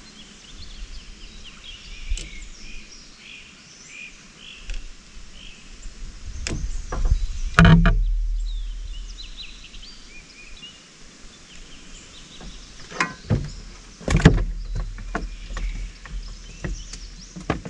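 A few knocks and thumps from handling gear in a small fishing boat, the loudest about halfway through and another near two-thirds of the way, with birds chirping.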